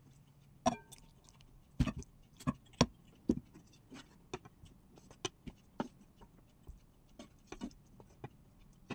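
Irregular light clinks and knocks of a serving spoon against a pot and a glass bowl as okra soup is dished out. One clink about a second in rings briefly.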